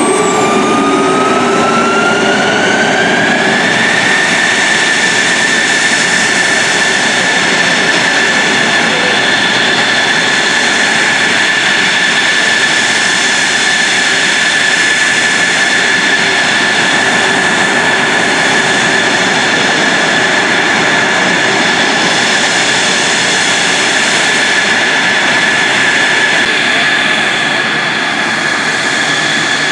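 F-16 Fighting Falcon's jet engine running on the ground. Its loud whine rises in pitch over the first few seconds, then holds steady over a dense rushing noise, easing slightly near the end.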